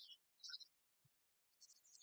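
Near silence, broken only by a few faint, short high-pitched crackles and one faint low thump about a second in.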